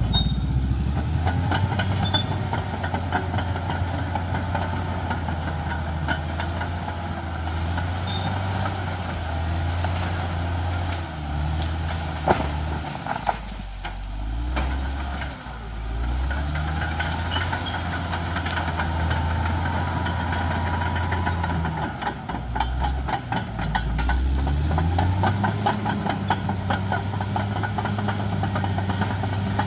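Caterpillar D6R XL crawler bulldozer working: its diesel engine runs steadily and its pitch dips and recovers twice as the load changes, over a constant rattle and clank from the steel tracks. A single sharp crack comes about twelve seconds in.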